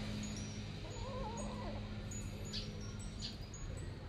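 A short wavering animal call about a second in, over a steady background hum, with faint high chirps scattered through.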